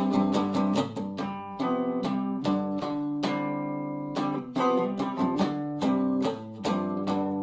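Solo electric guitar playing a run of picked notes and held chords, several notes a second, each note ringing and fading.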